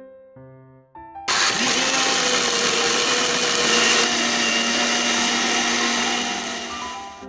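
Electric blender switching on about a second in and running at full speed, grinding soaked soybeans and water into soy milk; its motor hum climbs briefly as it starts, then holds steady under the loud grinding, easing off near the end.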